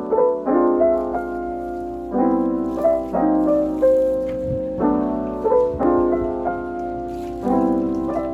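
Background music: gentle piano chords, re-struck every half second to a second.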